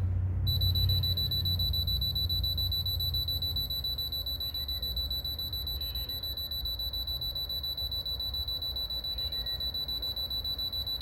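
RC radio transmitter beeping steadily while its trim button is held, a high-pitched beep repeating several times a second as the steering trim steps back up toward full, over a low hum.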